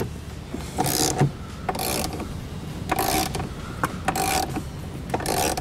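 3/8-inch ratchet with a 13mm socket clicking in short strokes, about five in all at roughly one a second, running a grab-handle mounting bolt in before it is tightened down.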